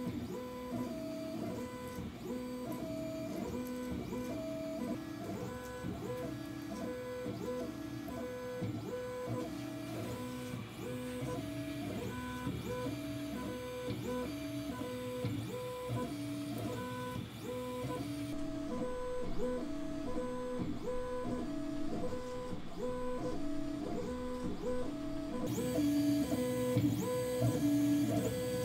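Tronxy X5SA 3D printer running a print: its stepper motors sing in short pitched notes that switch on and off and change pitch with each move, in a repeating pattern.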